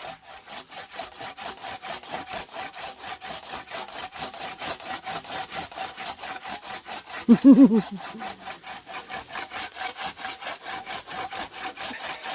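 Hand saw cutting through an old apple tree's branch wood in fast, even strokes, about four or five a second, with a steady ringing from the blade. About halfway through, a short loud vocal sound stands out above the sawing.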